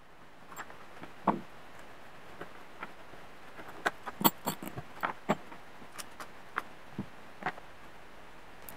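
Light, scattered clicks and taps of a two-stroke reed valve block being handled by hand, its thin reed petals taken off with a small tool, with a quick run of clicks about halfway through.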